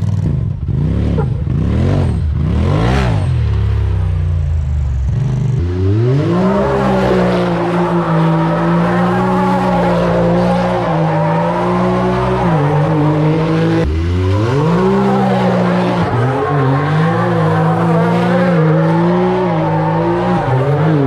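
Side-by-side UTV engine revving hard while doing donuts. Its pitch sweeps up and down in the first few seconds, then holds high and wavers as it circles. It dips briefly about fourteen seconds in before climbing again.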